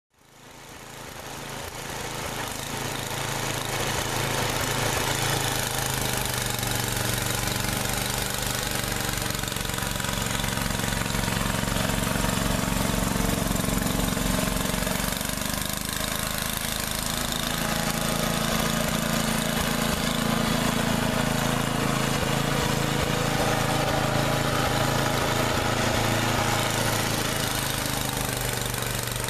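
1989 Toro 824 snowblower's Tecumseh HM80 single-cylinder engine running under load while throwing snow, its pitch shifting as the load changes. It is running with the choke left fully on by accident. The sound fades in over the first few seconds.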